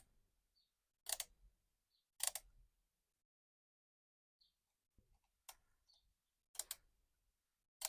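A tool tightening a bar-end mirror's bolt, giving a sharp click about once a second, five in all, with faint ticks between.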